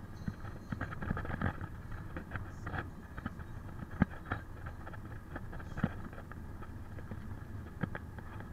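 Car driving on an open road, heard from inside the cabin: a steady low road and engine rumble with frequent small clicks and rattles, and one sharp knock about four seconds in.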